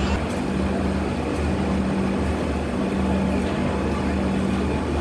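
Steady low mechanical hum of a passenger train standing at a platform.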